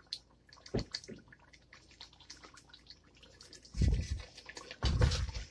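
Thick korma gravy bubbling in a cooking pot, with small pops throughout. There is a dull knock about a second in, and two louder thuds near the end.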